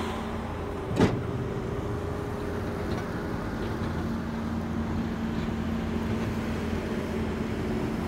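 Vehicle engine running with a steady hum that holds one pitch, and a single sharp knock about a second in.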